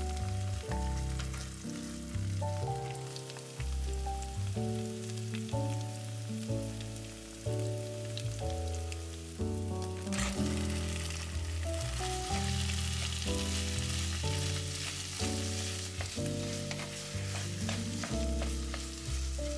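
A tomato-and-onion curry base sizzling and frying in a nonstick pan as it is stirred with a wooden spatula; the sizzle gets clearly louder about halfway through. Background music with a steady bass line plays throughout.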